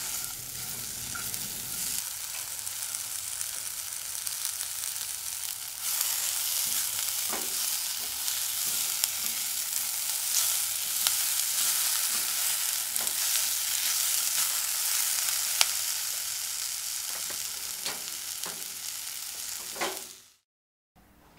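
Chicken, peppers and onion sizzling in hot oil in a wok while a silicone spatula stirs and tosses them, with occasional sharp knocks of the spatula against the pan. The sizzling cuts off abruptly near the end.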